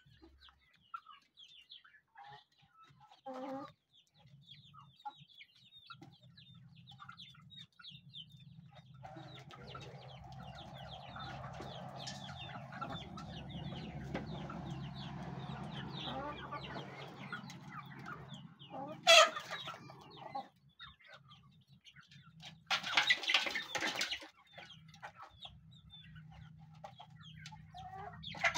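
A flock of chickens clucking and giving short high calls while they feed. A low steady hum runs under the calls through the middle stretch. One sharp loud sound comes about two-thirds of the way in, and a longer, noisy burst follows a few seconds later.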